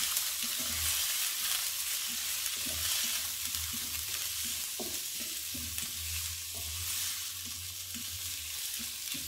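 Sliced onions frying in oil in a non-stick pan, with a steady sizzle, stirred with a wooden spatula that scrapes and taps softly against the pan.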